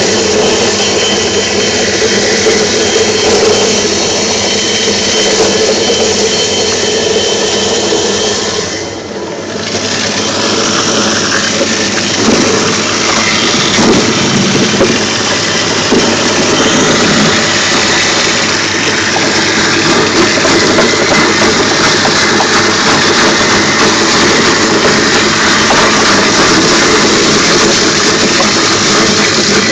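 Homemade apple-pulping machine running steadily as it grinds apples fed into its wooden hopper, with a brief dip in loudness about nine seconds in.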